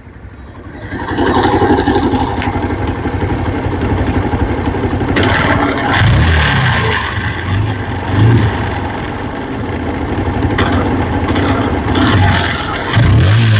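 TVS Apache RTR 150's single-cylinder four-stroke engine running after an engine rebuild, blipped up in revs a few times, about six, eight and thirteen seconds in.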